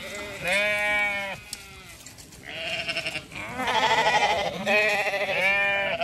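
Zwartbles lambs bleating, one quavering bleat after another, with a short lull about two seconds in and several calls close together after it.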